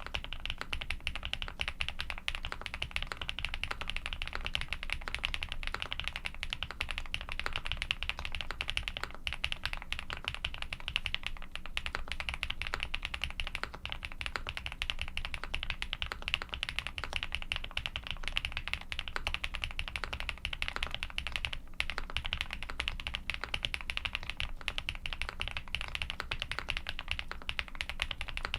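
Continuous typing on a Mr. Suit custom mechanical keyboard with Krytox 105-lubed Durock Cobalt POM switches, a polycarbonate plate and GMK keycaps. The keystrokes come in a dense, unbroken run of clacks.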